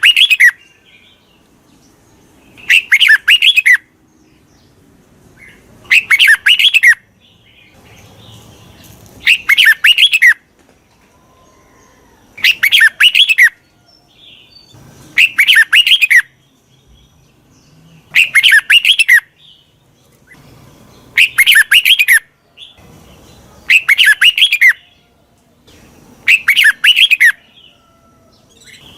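Red-whiskered bulbul song played as a lure: the same short, loud chirping phrase repeats about every three seconds, around ten times.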